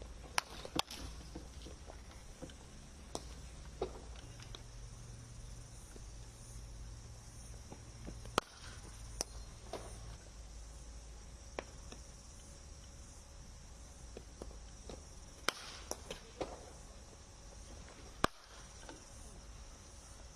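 Cricket bats and balls knocking in practice nets: about a dozen sharp cracks at uneven intervals. Under them runs a steady high insect drone.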